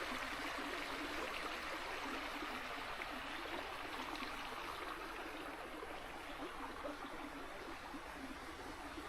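Steady rushing of a flowing stream, an even wash of water noise.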